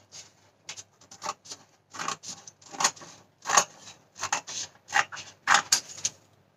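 Scissors snipping through a sheet of paper in a long series of cuts, about two to three snips a second.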